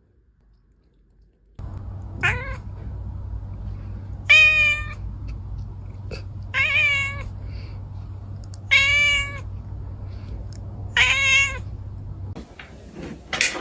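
A cat meowing five times, about two seconds apart, each meow drawn out for well under a second, over a steady low hum.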